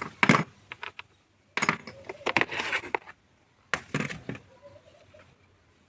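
Tools and metal parts clicking, clattering and scraping in three short spells while a fuel line connection on a BMW engine is being undone to check fuel delivery.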